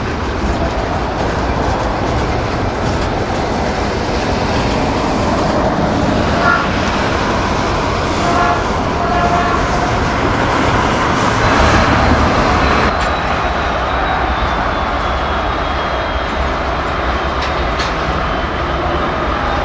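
A train rolling past, its railroad cars making a steady rumble and rail noise. It is loudest a little past the middle, then eases off suddenly at about thirteen seconds.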